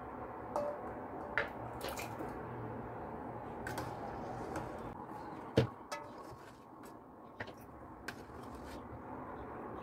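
Hot strawberry jam being ladled with a metal ladle from a metal pot through a plastic funnel into a glass jar: soft squishing and dripping of the jam, with sharp light clinks of the ladle against the pot and jar, the loudest about five and a half seconds in.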